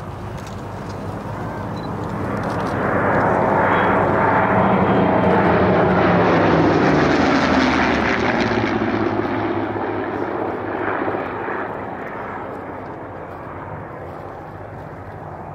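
Four WWII piston-engined fighters (P-47 Thunderbolt, P-51 Mustang, Spitfire and Hurricane) flying past in formation. Their engines drone, swelling to loudest overhead about three to eight seconds in, then drop in pitch and fade as the formation passes away.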